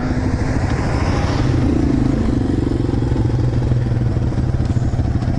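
Honda Grom's small single-cylinder four-stroke engine running steadily as the motorcycle is ridden, under a steady rushing noise.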